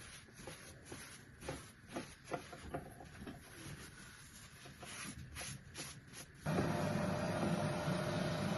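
Light clicks and handling knocks, then a steady mechanical whir starts suddenly about six and a half seconds in and runs on at a constant level, like a household appliance switched on.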